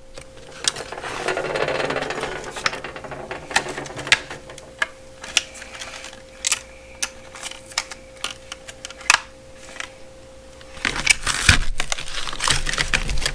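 Small hard plastic and metal tool parts being handled: scattered clicks and taps, with rustling and scraping of packaging around a second in and again near the end. A faint steady hum runs underneath.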